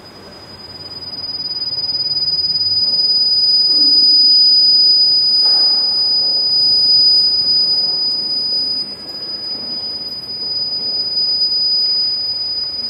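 A loud, steady high-pitched electronic tone with no break, swelling over the first few seconds and then holding at one pitch.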